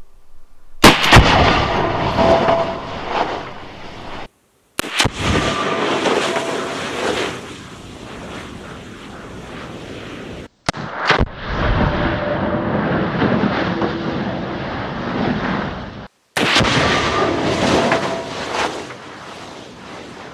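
Serbu BFG-50A .50 BMG rifle shot and the blast of an oxygen tank in a pickup truck bed, heard four times in a row with abrupt cuts between. Each time a sharp crack is followed by a long rumbling roar that fades over several seconds.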